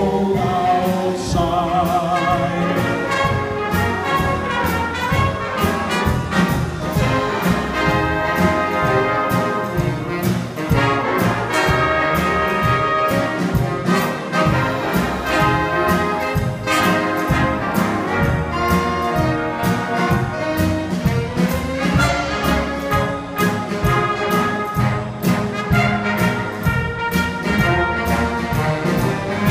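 Live big band playing an instrumental passage: saxophones and brass over a steady drum beat.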